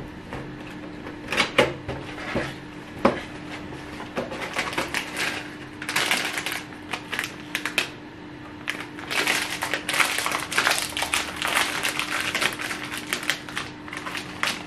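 Crinkling of a foil-and-plastic snack bag of tortilla chips as it is handled and worked open. It comes in bursts of crackle, with a few sharper clicks in the first seconds.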